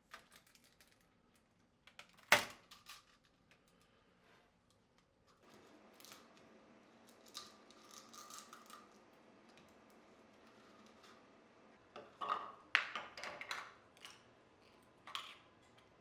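Scattered light clicks and taps of small hard parts being handled, with one sharper click a couple of seconds in and a quick cluster of clicks near the end. A faint steady hum starts about five seconds in.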